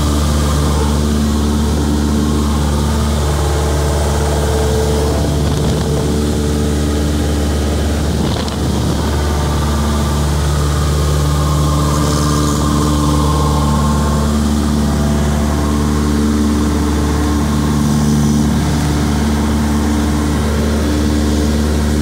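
Single-engine light aircraft's piston engine and propeller running steadily at takeoff power as the plane climbs out after lifting off, a loud continuous drone with a strong low hum. There is a brief small dip in loudness about eight seconds in.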